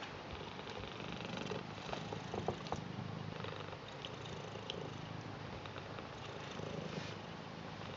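Ginger British Shorthair cat purring steadily, with a few light clicks about two to three seconds in.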